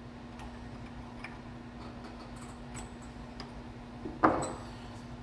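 A hammer striking a chisel to fold the old seal in the snout of an A833 transmission bearing retainer: light metallic ticks, then a single sharp blow about four seconds in.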